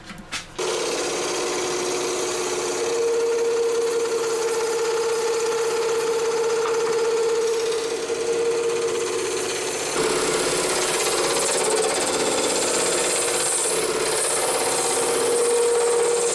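Wood lathe spinning a mallee burl and epoxy resin blank while a turning tool cuts it: a steady hum with a hiss of shavings coming off. The sound starts about half a second in and changes a little about ten seconds in.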